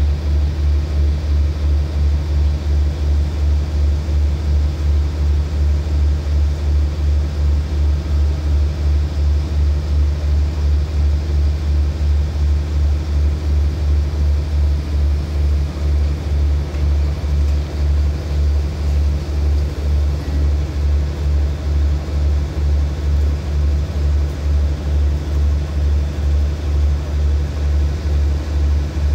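Diesel engine of a standing passenger train running at idle: a deep, steady hum that pulses evenly about twice a second.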